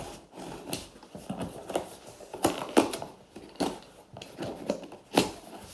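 Product packaging being opened by hand: a string of irregular short rustles, clicks and taps, one every half second or so.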